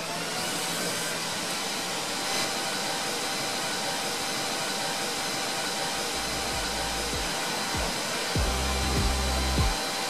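Electric fan running with a steady whir and a faint high whine. Background music with low bass notes comes in about six seconds in.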